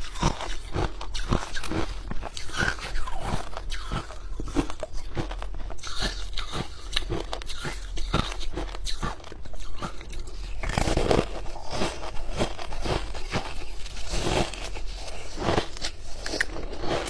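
Ice being bitten and chewed close to the microphone: a continuous run of sharp, irregular crunches and cracks, several a second.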